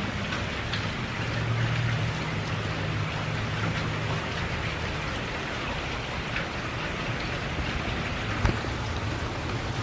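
Steady rain falling, an even hiss, with a low steady hum beneath it and a single sharp knock near the end.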